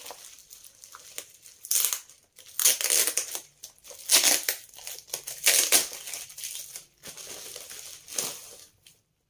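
Plastic parcel packaging crinkling and rustling as a package is unwrapped by hand, in several loud bursts with quieter rustling between them.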